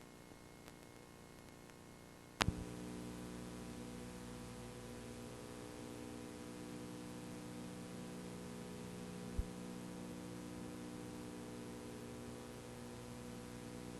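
Faint hiss, then a sharp click about two seconds in, after which a steady electrical mains hum of several even tones runs on, with another small click later.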